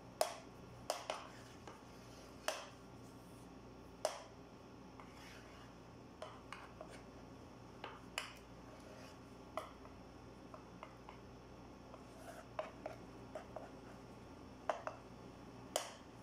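Metal spoon tapping and scraping against a metal baking tray while smoothing semolina cake batter: irregular sharp clicks with a short ring, a few clustered near the start and more scattered later.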